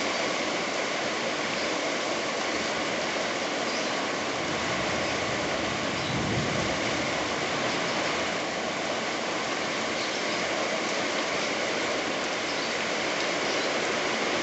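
Heavy rain pouring steadily in a strong wind, an even hiss that does not let up, with a brief low swell of wind about six seconds in.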